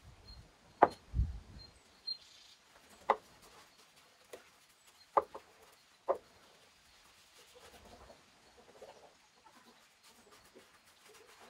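Paintbrush stroking wood finish onto rough charred wood, with a handful of short sharp clicks and knocks in the first half, the loudest about a second in.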